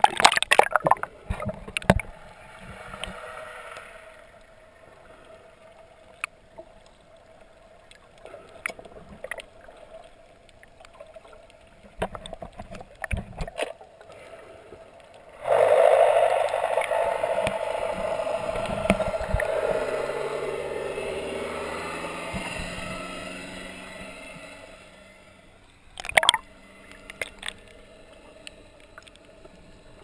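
Muffled water sound through a camera's waterproof housing as it is dipped and held underwater: a splash at the start, then gurgling and scattered knocks. About halfway a louder rushing noise starts suddenly and fades away over several seconds.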